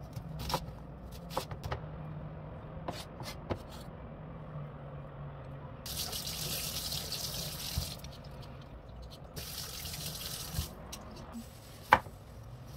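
A kitchen knife taps down through onion onto a plastic cutting board, a few separate strokes in the first few seconds. Then the tap runs into a stainless steel sink in two spells of a couple of seconds each, with a vegetable peeler rinsed under it. Near the end, two sharp knife strikes cut into a potato on the board.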